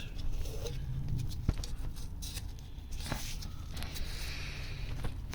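Light clicks and rubbing as a removed Honda ST1100 water pump is handled and felt over, with one sharp tap about a second and a half in.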